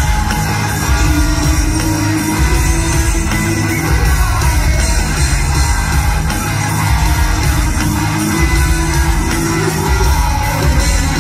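Live heavy rock band playing loudly, with electric guitars and a heavy bass-and-drum low end, heard from among the audience.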